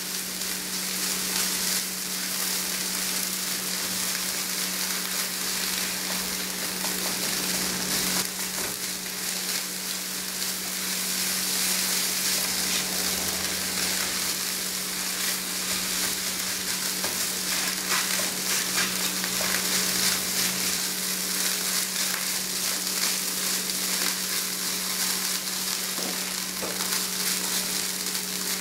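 Ground beef, scrambled egg and oat bran sizzling steadily in a nonstick frying pan as the oat bran toasts, stirred now and then with a silicone spatula. A steady low hum runs underneath.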